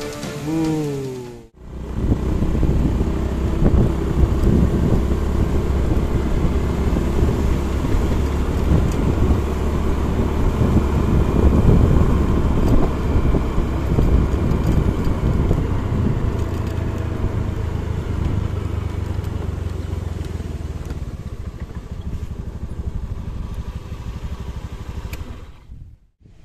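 Motorcycle engine running steadily while riding along a paved road, with rushing wind and road noise; it dies away near the end. A few bars of background music end at the start.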